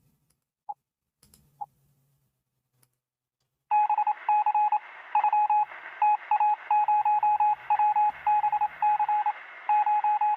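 Morse code: a single beeping tone keyed in short dots and longer dashes over a radio-like hiss. It starts in earnest about four seconds in, after a few isolated short beeps.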